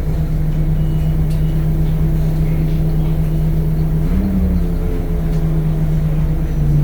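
Temsa Avenue LF 12 city bus with a DAF Euro 5 diesel and ZF gearbox running, a steady loud drone that rises briefly in pitch about four seconds in and then settles back.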